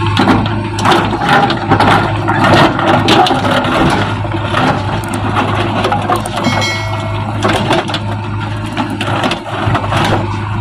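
JCB backhoe loader's engine running steadily under repeated cracking and crunching of brick and masonry as a wall is torn down.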